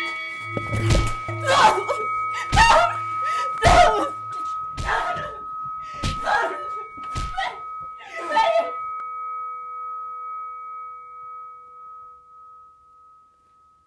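A run of heavy hits, about one a second, over a ringing bell-like tone; the hits stop about nine seconds in and the tone fades away over the next few seconds.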